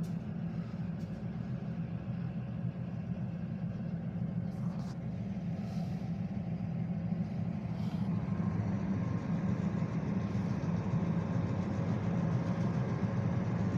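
An engine idling steadily with a low hum that grows a little louder after about eight seconds.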